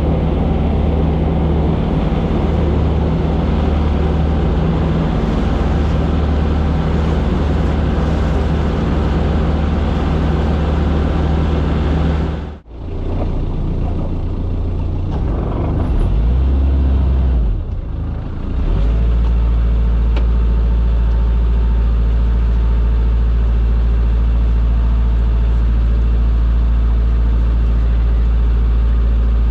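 Small fishing boat's engine running steadily under way. About halfway through the sound cuts out for an instant and changes, then settles into a heavier, steadier low drone.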